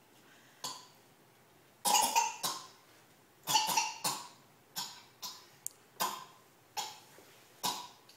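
A person coughing over and over: about a dozen short coughs, some single and some in quick runs of two or three, with brief pauses between them.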